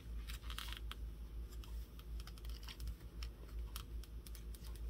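Paper and card pages of a handmade junk journal being handled and turned: a string of small taps, clicks and light paper rustles.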